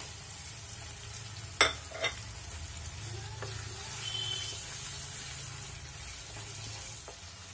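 Thick masala and paneer cubes sizzling in a pan while a wooden spatula stirs them, with two sharp knocks about a second and a half and two seconds in.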